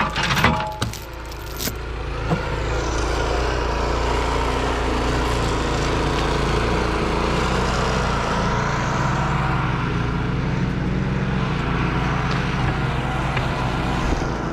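A vehicle engine running steadily, with a few sharp knocks in the first two seconds.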